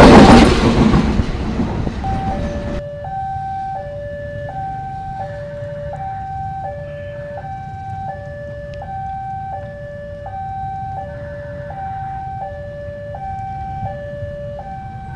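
CC 206 diesel-electric locomotive passing at very close range, a loud rush and rumble that stops abruptly about three seconds in. A level-crossing warning alarm sounds throughout: two electronic tones alternating high and low, each held under a second, warning that the crossing is closed for an approaching train.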